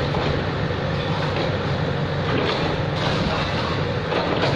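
Komatsu PC78UU hydraulic excavator's diesel engine running steadily while the machine demolishes a building, with a few faint knocks of breaking masonry and rubble.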